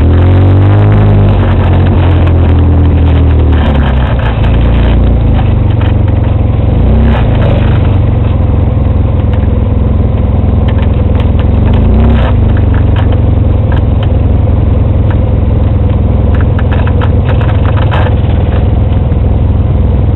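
Off-road vehicle engine running loud and close, its pitch rising and falling a few times in the first four seconds, then holding steady. Scattered rattles and knocks from the vehicle jolting over the rough dirt trail run through it.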